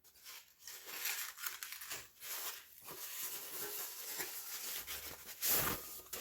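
A product's packaging being opened and handled: a box and its wrapping rustling and crinkling, with a louder scrape of packaging shortly before the end.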